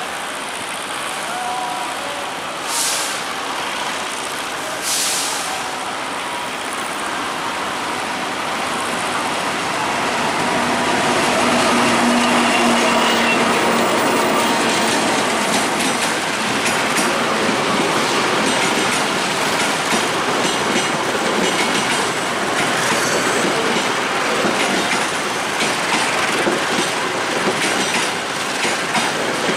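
KAI CC206 diesel-electric locomotive passing close by at speed, followed by its passenger carriages rolling past, wheels clacking over the track. Two short hisses about three and five seconds in.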